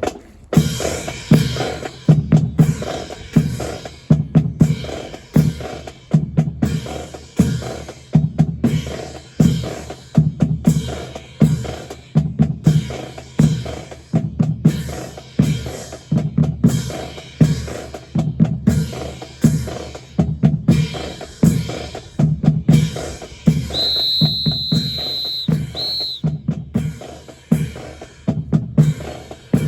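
Marching percussion of snare and bass drums playing a steady, driving drum cadence. A high steady tone sounds for about two seconds a little past the three-quarter mark.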